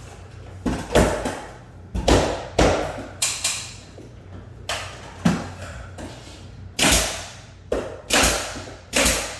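Nail gun firing nails through crown molding into the wall: a series of sharp shots at uneven intervals.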